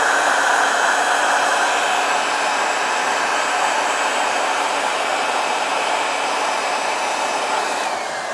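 Handheld electric hot-air blower running steadily with a faint fan whine, which falls away as it is switched off near the end. It is heating Sno-Seal wax into the leather pull tabs of work gloves.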